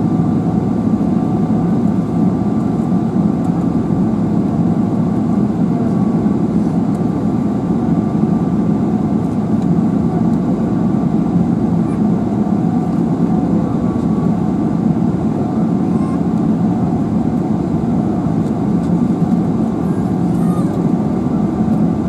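Cabin noise inside a Boeing 777-300ER during taxi: a steady low rumble from its GE90 engines at taxi power, with a faint steady whine above it.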